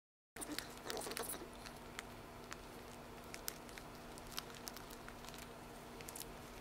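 Faint crinkling of a plastic drape and small scattered clicks as gloved hands handle a central venous catheter and its suture, over a steady low electrical hum. The sound cuts in abruptly after a brief dead silence, and the crinkling is busiest in the first second or so.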